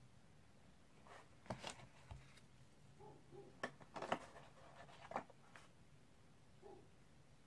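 Hands handling a black plastic case and its packaging: scattered clicks and knocks with some rustling over a few seconds, the loudest clicks about four seconds in.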